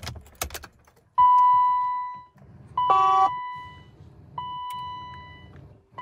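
Keys jangling with a few clicks as the ignition key is worked in a BMW E32 750iL, then the car's electronic warning chime: a ringing single note that fades over about a second, sounding again roughly every second and a half, with one fuller multi-note chime about three seconds in.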